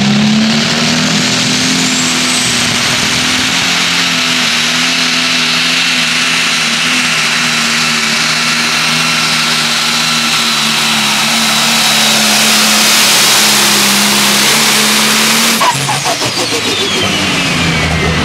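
Pro Stock pulling tractor's turbocharged diesel engine running at full throttle through a pull: it revs up in the first second and holds a loud, steady note for about fifteen seconds, then cuts off abruptly near the end, leaving a high whine falling in pitch.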